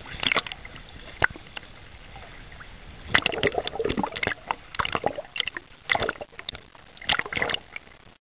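Choppy sea water sloshing and splashing over a camera at the surface, in irregular bursts of splashes as waves wash over it, with a low hiss of water between.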